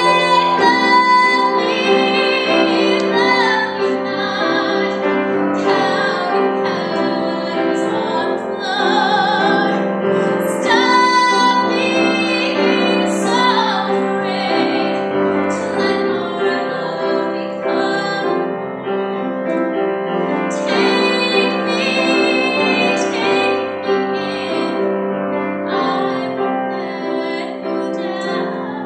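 A female voice singing a show song over piano accompaniment, some held notes wavering with vibrato.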